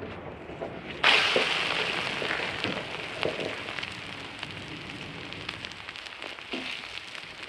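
Omelet flipped onto a hot flat-top griddle, starting a loud sizzle about a second in that slowly fades, with scattered light taps and scrapes of a spatula.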